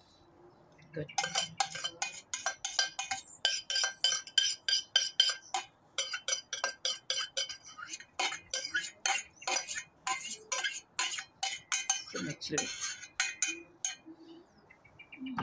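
A metal spoon clinking and scraping against the inside of a stainless steel pot as food is spooned out. The clinks come fast and ring briefly.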